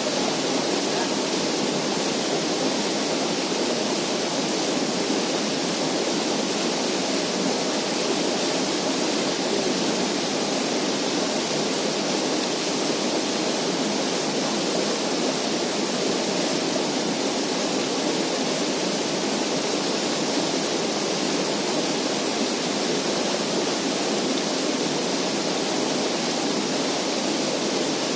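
Steady, even rushing noise that does not change, with no distinct events in it.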